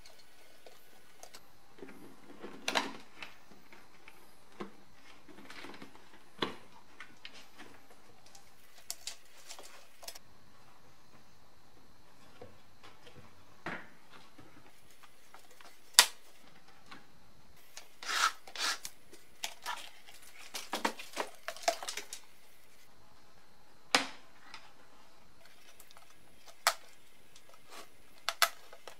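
Plastic heater/air-con housing of a BMW E30 being taken apart by hand: scattered clicks, knocks and rubbing of hard plastic panels and small metal retaining clips. One sharp click stands out about halfway through, followed by a busy run of small clattering rattles.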